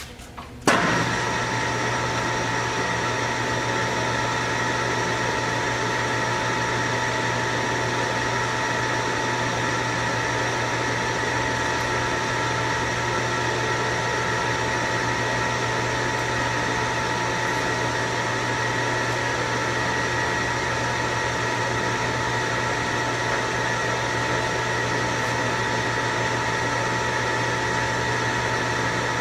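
DoAll Romi 13-5 engine lathe switched on: the motor and headstock gearing start suddenly under a second in and then run steadily with the chuck spinning, a constant hum with a steady whine above it.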